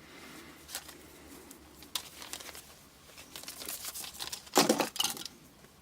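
Packaging crinkling and rustling as drone propellers are handled and taken out of the box, with a louder burst of crackling about four and a half seconds in.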